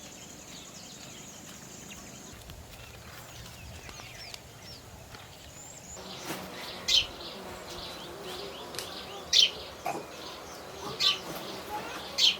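Birds chirping and calling outdoors, with a steady high whine for the first two seconds. From about six seconds in, a louder bird gives short, sharp calls about every second and a half.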